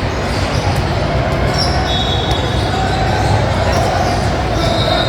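Basketball game sounds in a gym: the ball bouncing on the court, a few short high squeaks, and steady crowd chatter underneath.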